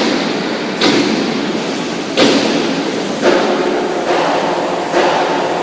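A bulk feed truck's unloading gear running steadily, broken by four sharp thuds a second or more apart, each ringing on in the large hall.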